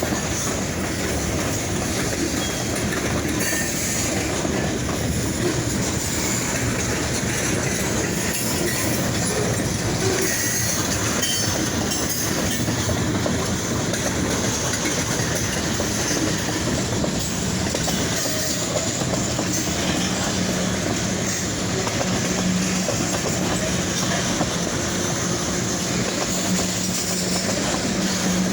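Freight train cars rolling past close by: a steady, unbroken rumble and clatter of steel wheels on the rails, with a low steady hum growing stronger in the second half.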